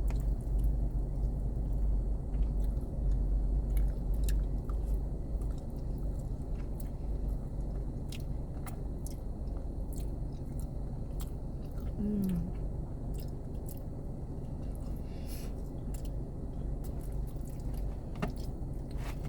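Close-up chewing of a mouthful of chicken alfredo, with many small wet mouth clicks over a steady low hum, and a short 'mm' sound about twelve seconds in.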